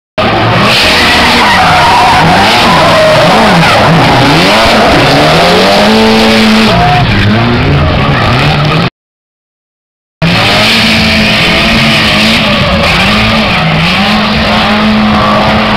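Drift cars sliding through a corner: loud engines revving hard, their pitch swinging up and down with the throttle, over the hiss and squeal of spinning tyres. The sound cuts out for over a second a little past halfway.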